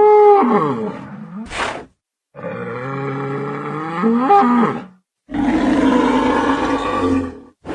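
Bull bellowing: long, low calls, one trailing off early on and two more following, with a short sharp noise burst between the first two.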